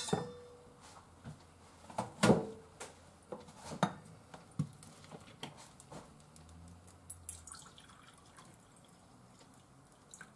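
Water dripping and trickling from a plastic bottle into a small metal measuring cup, with a few sharp knocks of the cup and bottle being handled on the counter; the loudest knock comes about two seconds in.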